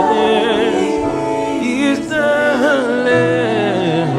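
Gospel worship song performed live: a singer's voice sliding and ornamenting the melody over steady held chords.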